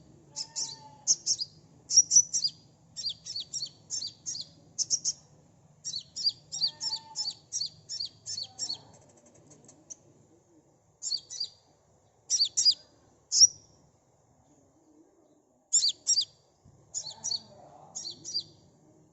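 Sunbird (Indonesian 'kolibri') calling: runs of rapid, sharp, high-pitched chirps, broken by short pauses and picking up again in shorter bursts.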